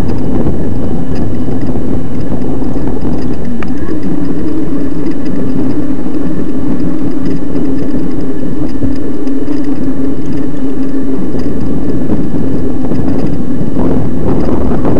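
Electric mountain bike riding along a dirt track: heavy wind buffeting on the microphone over a steady droning tone that steps up slightly in pitch about four seconds in, with a few knocks near the end.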